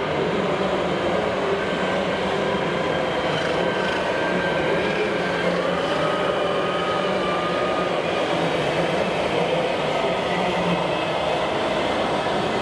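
1:8 scale RC John Deere 8530 tractor pulling a loaded dump trailer: a steady mechanical running noise with a faint whine that drifts slowly in pitch, over the continuous din of a busy hall.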